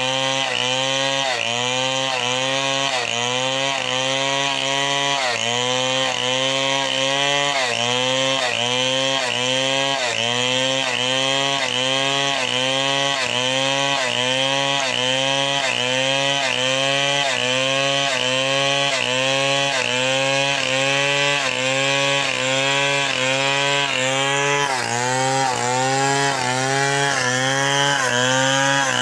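Gasoline chainsaw ripping a hardwood log lengthwise into planks, engine held at high revs. Its pitch sags and recovers in a steady rhythm, about one and a half times a second, as the chain works through the cut.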